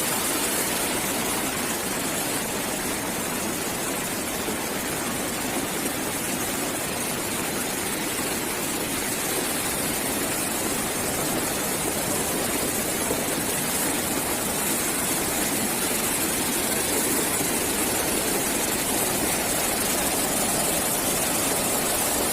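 Floodwater rushing steadily in a swollen river, an even roar with no breaks or distinct impacts.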